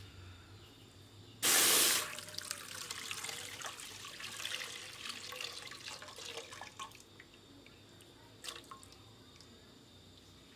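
Water pours out in a short, loud rush about a second and a half in, then trickles and drips irregularly for several seconds before dying down.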